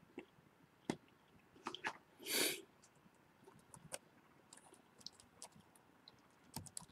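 Faint, scattered clicks and taps on a laptop's keys and touchpad, with a short rustling burst about two and a half seconds in and a quick cluster of clicks near the end.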